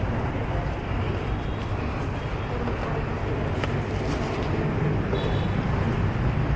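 Steady background din of motor traffic and room noise. A few light clicks and rustles of the camera being handled come about four seconds in.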